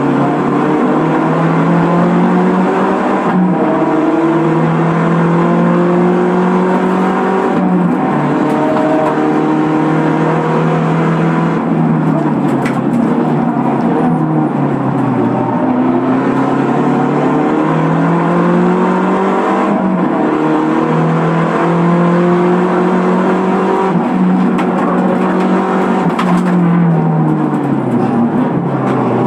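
Mazda race car's engine heard from inside the stripped cockpit at racing speed: it climbs in pitch through the gears with a sharp drop at each upshift every few seconds, and twice winds down under braking and downshifts before accelerating again.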